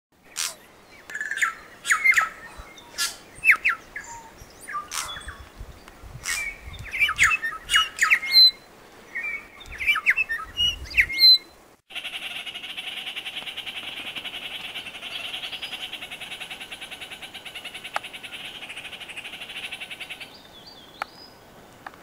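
Wild forest birds giving a run of short, sharp squawking calls. About halfway through, the sound cuts abruptly to a steady, fast-pulsed buzzing chatter that stops shortly before the end.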